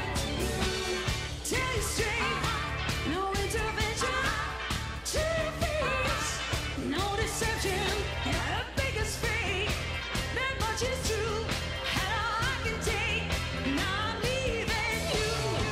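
Background pop song with a singer over a steady drum beat.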